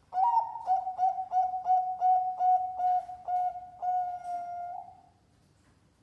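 Zebra dove (perkutut) cooing one song phrase: a quick run of about ten short coos, about three a second, then a longer held coo that fades out about five seconds in.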